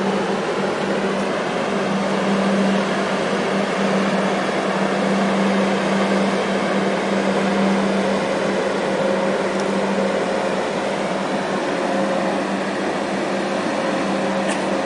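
Steady machinery hum from the 20,124-TEU container ship EVER GENTLE passing close by, a constant low drone with a fainter higher tone over an even rush.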